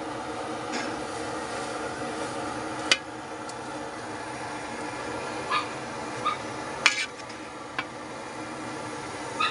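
Pot of pork sinigang boiling, a steady bubbling hiss with a handful of short, sharp clicks scattered through it, the two loudest about three and seven seconds in.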